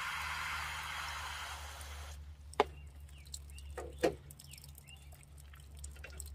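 Water spraying from a garden hose's pistol-grip nozzle into a shallow tray, cutting off suddenly about two seconds in. Then two sharp knocks about a second and a half apart.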